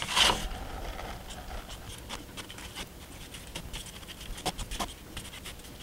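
A paintbrush working a watery black wash over model railroad flex track and its cardboard base: soft scratching and light ticks of bristles against the ties and rails.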